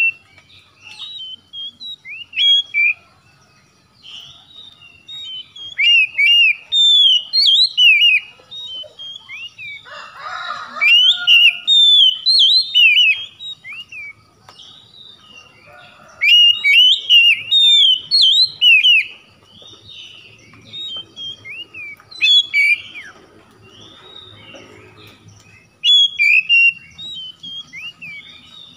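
Oriental magpie-robin singing: bursts of quick, varied whistled notes sliding up and down, in phrases a few seconds long with short pauses between them. A harsher, noisier note breaks in about ten seconds in.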